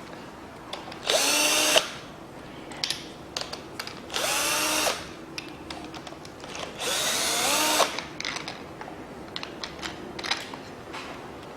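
Power drill-driver run in three short bursts, its motor whining up in pitch at the start of each, with small metal clicks in between; typical of bolts being spun out during an engine teardown.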